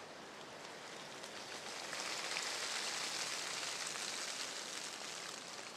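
Rain pattering on fallen leaves and the forest floor, swelling louder for about three seconds from about two seconds in, then easing back.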